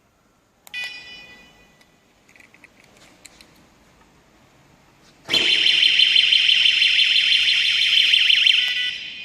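Battery bicycle alarm mounted on an electric bike. It gives one short high beep that rings away, then a few seconds later sounds loud, a high rapidly warbling siren for about three seconds before trailing off.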